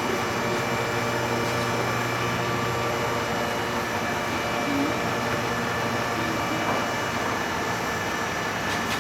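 Lehmann 38-inch-swing hollow-spindle lathe running under its own power, its 25 hp drive and spindle gearing giving a steady hum with several steady tones above it.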